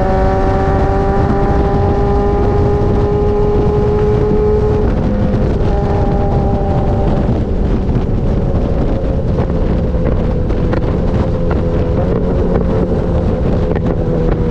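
BMW S1000RR inline-four motorcycle engine through an Austin Racing GP1R full Inconel exhaust, heard while riding under heavy wind rush on the microphone. The engine note climbs slowly for the first few seconds, then changes about five seconds in to a lower note that slowly falls, with scattered crackles in the second half.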